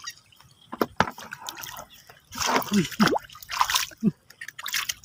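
Shallow muddy water sloshing and dripping as a person wades barefoot and works their hands through it. There are several short splashes, busiest in the middle.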